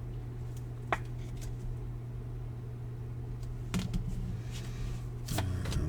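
A steady low hum under a few soft clicks from baseball cards being handled and sorted, with one brief squeak about a second in.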